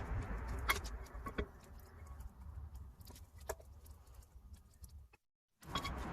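Scattered light metallic clicks and clinks of tools and brake parts being handled during a brake teardown. The sound cuts out completely for a moment about five seconds in.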